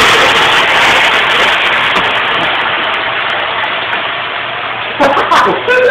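Chicken in hot oil and caramelized sugar sizzling loudly in the pot, an even hiss that slowly dies down. A voice breaks in near the end.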